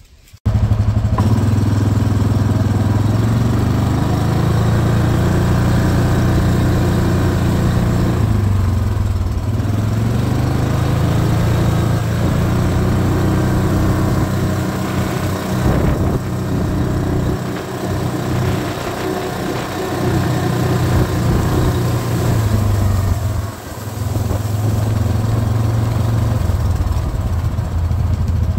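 ATV engine running steadily at low trail speed, its note easing off and picking back up a few times with the throttle. It starts abruptly about half a second in.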